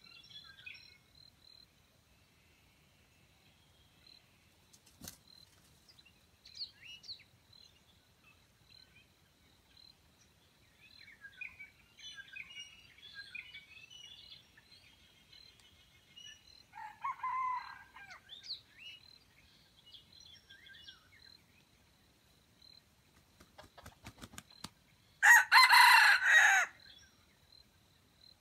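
Junglefowl rooster crowing once, loud and short, about a second and a half long, near the end. Before it come scattered small bird chirps and a softer call about two-thirds of the way through, over a steady high insect tone.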